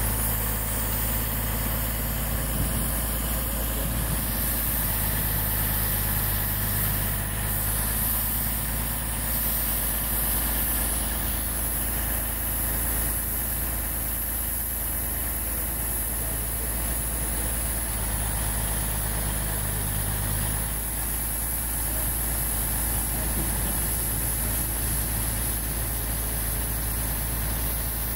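Engine of a truck-mounted water-well drilling rig running steadily, its low hum shifting a few times.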